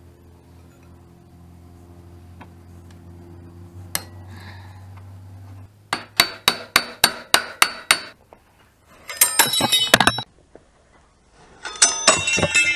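Hammer tapping metal at a dirt bike's rear wheel and axle: after a low steady hum, about ten sharp ringing strikes at roughly five a second, starting about six seconds in. Two bursts of rapid metallic clicking follow near the end.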